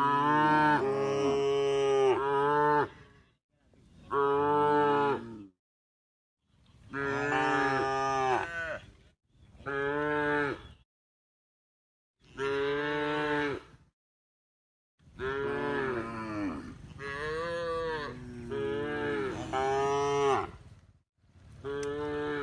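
Cows mooing: a series of long, drawn-out moos, one after another, separated by short breaks of complete silence.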